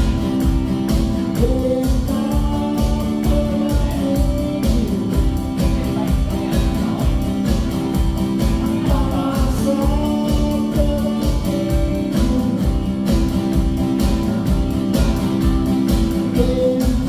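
Live band music: an acoustic guitar strummed over a drum kit keeping a steady kick-drum beat, with a man singing a melody over it.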